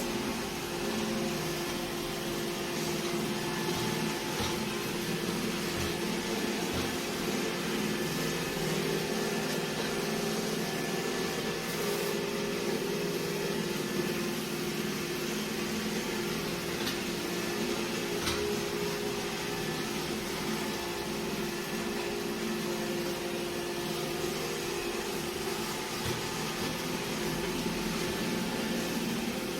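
iRobot Roomba j7+ robot vacuum running, a steady motor and fan whir with a low hum, and a few faint ticks.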